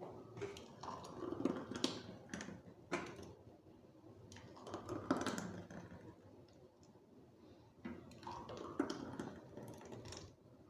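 Freshly blended lemon and peach juice being poured from the blender jug into two glasses, with irregular clinks and knocks of glass.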